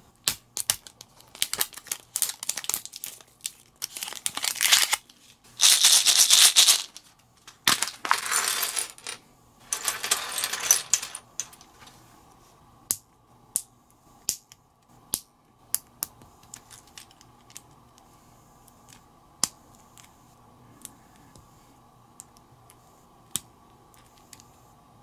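Small plastic building-block pieces rattling in a plastic capsule and spilling onto a wooden table, in loud noisy bursts for the first eleven seconds. After that come single sharp clicks, about one a second, as the bricks are picked up and snapped together.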